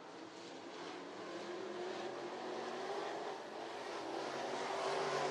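Several dirt-track stock car engines running under load, a steady roar that grows louder as the cars come closer.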